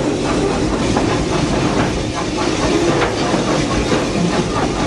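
Vulcan steam train running along the track, a steady rumble and hiss with irregular clicking of the wheels over the rails.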